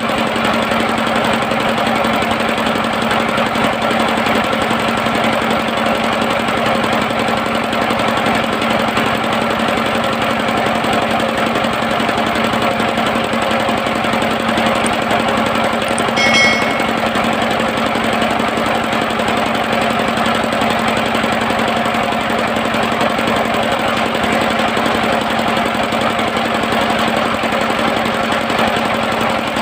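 Engine-driven circular sawmill running steadily, a constant mechanical drone with a steady hum. A short high squeak about halfway through.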